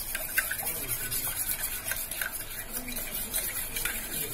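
A spoon beating raw eggs in a stainless-steel pot, clinking and scraping against the metal in repeated irregular strokes as the eggs are whipped to a froth.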